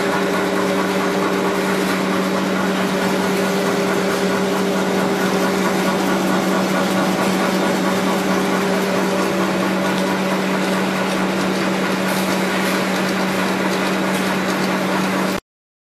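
Rotary A4 paper cutting machine with circular slitting knives running steadily: a continuous machine hum with a constant low tone over a rushing mechanical hiss. The sound cuts off abruptly near the end.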